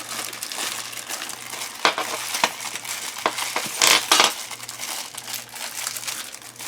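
Plastic parts bag crinkling as it is handled and opened, with metal accessory blades and parts clinking against each other; a few sharp clinks, the loudest about four seconds in.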